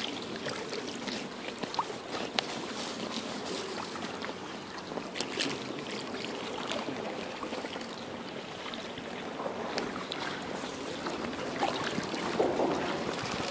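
Kayak paddles dipping and pulling through calm river water, with trickling drips and small splashes and scattered light clicks.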